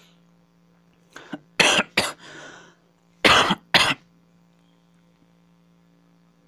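A person coughing: two coughs a little over a second in, then two more about a second and a half later. A faint steady hum sits underneath.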